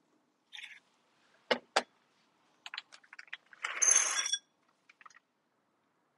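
Kitchen baking utensils being handled: two sharp knocks, a few light clicks, then a short metallic rattle with a ringing clink, the loudest sound, followed by a couple of faint clicks.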